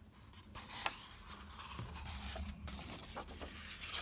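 Pages of a large hardback book being turned by hand: paper rustling and brushing, with a few small clicks.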